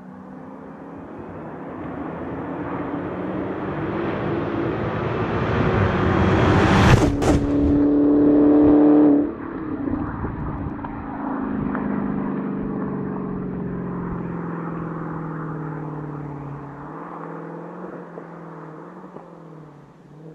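A car with a hard-running engine accelerates toward and past a low roadside microphone, loudest as it goes by about seven seconds in. The engine sound drops sharply a couple of seconds later, and its falling note then fades as the car draws away.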